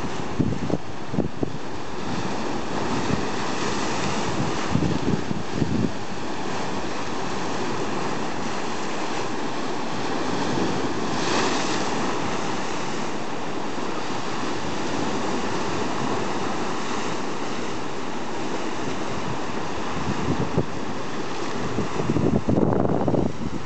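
Lake waves crashing and washing over a rocky shore: a steady rush of surf that swells about halfway through as a bigger wave breaks, with wind gusting on the microphone in the first seconds and near the end.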